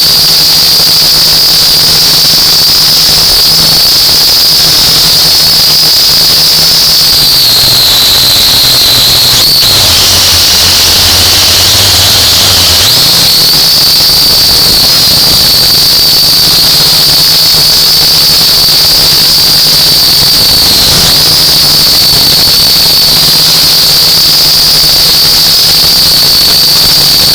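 UDI U818A quadcopter's small electric motors and propellers whining at a high pitch. About ten seconds in there is a click and the whine drops lower for a few seconds, then rises back as the throttle comes up again.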